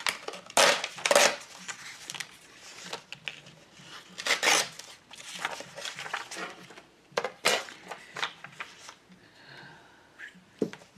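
Paper scraps being handled, slid and pressed down, rustling in irregular bursts, with a few light clacks from a clear plastic ruler being moved and set down.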